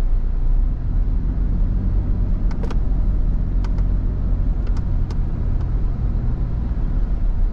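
Toyota Prado heard from inside the cabin while driving at low speed on a sealed road: a steady low drone of engine and tyre noise, with a few light clicks in the middle.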